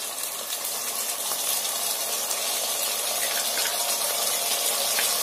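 Ginger-garlic paste and sliced onions sizzling in hot oil in a pressure cooker pan: a steady frying hiss that grows a little louder.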